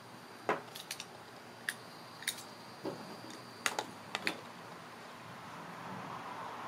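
Ratcheting PVC pipe cutter clicking as it is worked onto half-inch PVC pipe, with light knocks of the plastic pipe on a glass tabletop. The clicks are sharp and irregular, about eight of them over the first four seconds, and quieter after that.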